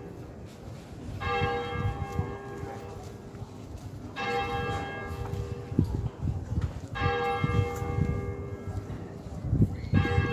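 A church bell tolling, struck four times about three seconds apart, each stroke ringing on with several steady tones until the next. Low thuds and rumbling run underneath and are loudest near the end.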